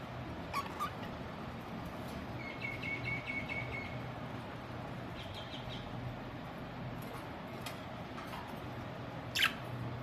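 Pet budgerigars giving a few short chirps and one longer held chirp, with a sharp, louder call falling in pitch near the end. A steady low hum runs underneath.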